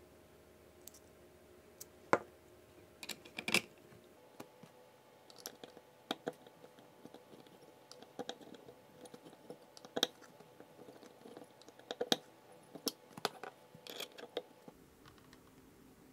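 Irregular sharp clicks and taps of small metal parts and a hex key being handled on a 3D-printed plastic saw housing, with a drill chuck and adapter fitted and a pulley set screw tightened. The loudest tap comes about two seconds in.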